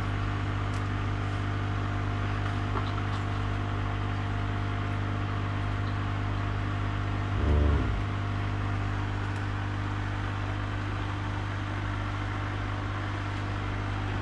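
Steady electric hum with a low buzz and a hiss underneath. A short, louder low sound comes a little past halfway.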